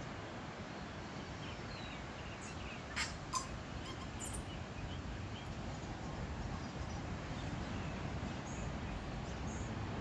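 Tui calling: a scattering of short high notes and sharp clicks, the two loudest clicks about three seconds in, over the steady rush of breaking surf.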